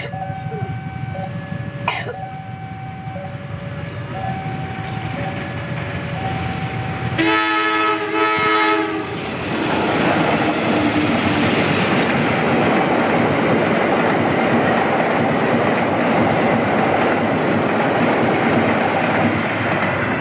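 A level-crossing alarm chiming in two alternating tones, then about seven seconds in a diesel locomotive horn blows for roughly two seconds. From about ten seconds the CC 201 diesel-electric locomotive and its train pass close by, engine and wheels running loud and steady.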